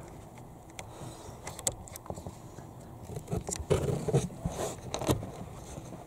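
Small clicks, scrapes and rustling as fingers work a new blade fuse into a car's plastic fuse box, busiest in the second half.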